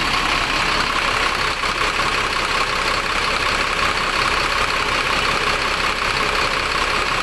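Bus diesel engine idling steadily, heard close at the open engine compartment. The engine has just been brought back to running after a long struggle to revive it.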